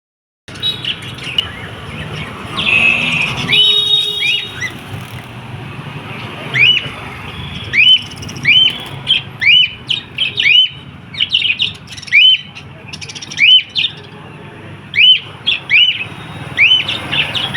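Small pet parrots chirping: a long run of short, upward-hooking chirps, about one or two a second, with a burst of harsher calls about three seconds in.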